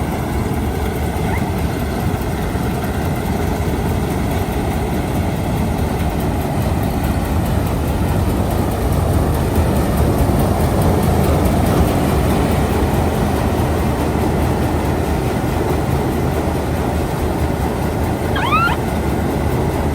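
Preet 987 combine harvester running steadily: a loud, continuous mechanical rumble. A brief high rising chirp sounds near the end.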